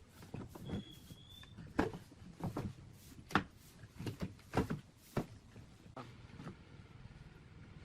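Irregular light knocks and clicks of wooden parts being handled, about a dozen over several seconds, with a brief high squeak about a second in.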